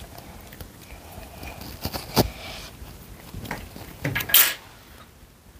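A few light knocks and clatters on a tabletop as clay and plastic modelling tools are handled, with a brief louder rustle about four seconds in.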